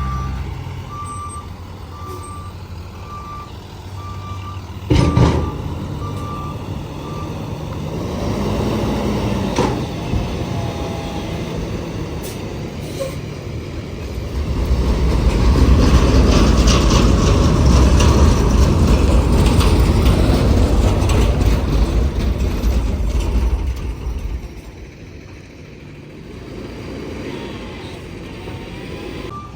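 Heavy truck working: a reversing beeper sounds for the first few seconds, a single sharp bang comes about five seconds in, then the engine runs hard with a loud rumble for about ten seconds from midway before easing off.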